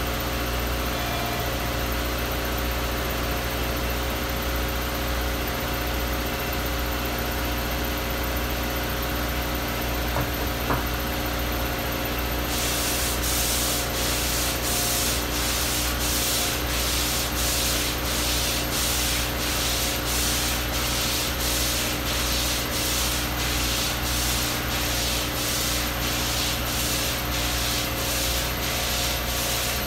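Car engine idling steadily. About twelve seconds in, heated washer fluid sprays and the windshield wipers start sweeping across the frosted glass: a hissing, scraping sound in rhythmic strokes a little more than once a second.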